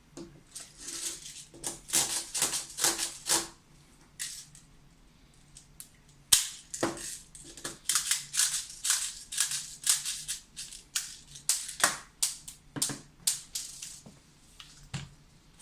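Airsoft BBs rattling and clicking in irregular clusters as an airsoft magazine is reloaded by hand.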